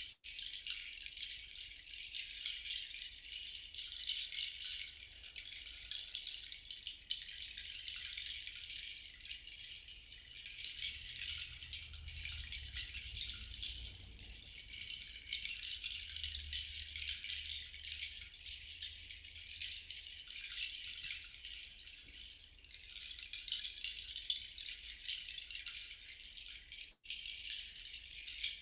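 A handheld rattle shaken without pause, giving a dense, grainy hiss, with a split-second break near the end.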